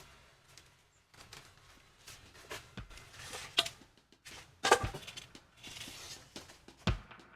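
Irregular knocks, taps and clinks of hand work with steel rebar and tools, a few landing heavier with a dull thump, mixed with short scraping hisses.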